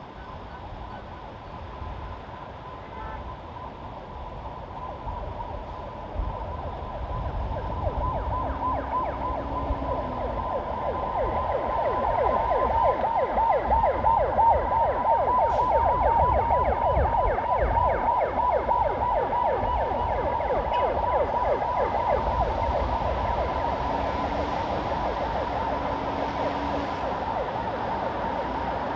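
Emergency vehicle siren in a rapid yelp, several sweeps a second, growing louder as it approaches, peaking mid-way and fading away. Steady city road traffic rumbles beneath it throughout.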